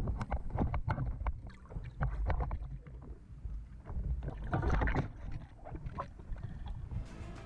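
Underwater sound picked up through a camera housing: water rushing and rumbling against it, with scattered clicks and knocks. Music comes in near the end.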